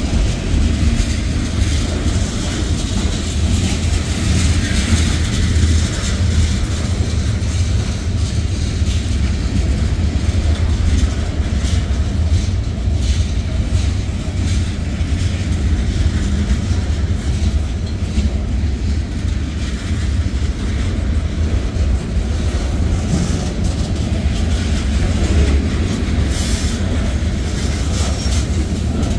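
Freight train cars, mostly covered hoppers, rolling steadily past close by: a continuous low rumble of steel wheels on rail with clattering wheel sets. A few sharp clacks stand out near the end.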